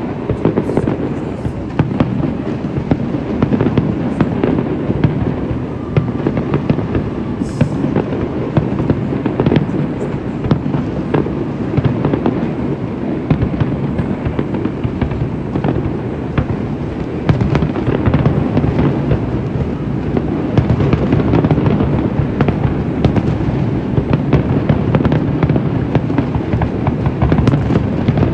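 Fireworks display: aerial shells bursting in a dense, continuous run of bangs over a low rumble, getting busier near the end.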